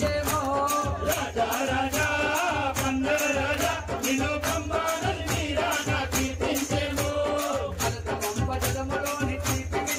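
Devotional song: a voice singing a melody over a fast, even rattling percussion beat and a steady bass line.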